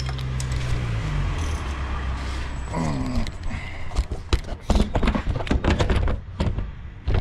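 Irregular metallic clicks and knocks of a wrench and tools as the engine's crankshaft is turned over by hand, to bring the next piston into view. A steady low hum fades out about a second in.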